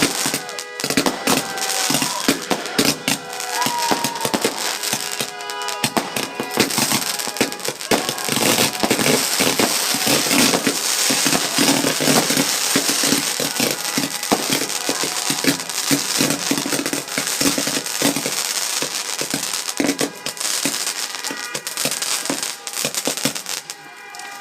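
Multi-shot firework cake firing: a dense, continuous run of crackling and popping bangs. A faint steady pitched tone sounds underneath in places, mostly in the first few seconds and again near the end.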